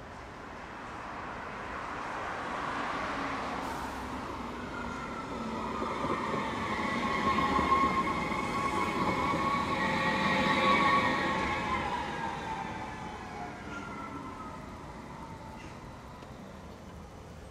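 CAF Urbos 100 electric tram passing close by: the whine of its electric drive, several tones that drop slightly in pitch as it goes past, over the rolling noise of its wheels on the rails. The sound swells to its loudest in the middle and fades as the tram moves away.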